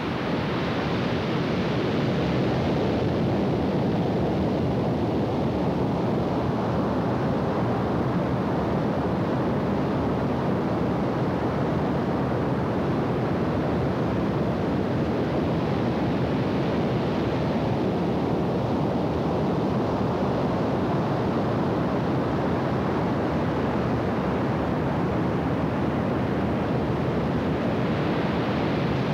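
Ocean surf breaking on a beach, a steady rush that slowly swells and eases, with wind on the microphone.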